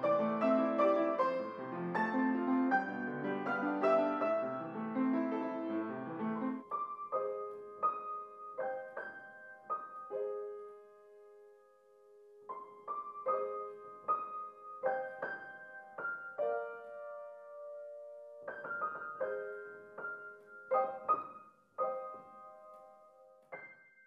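Solo piano music. Dense low chords for the first six seconds or so give way to sparse, ringing higher notes and chords with pauses between them, fading out at the end.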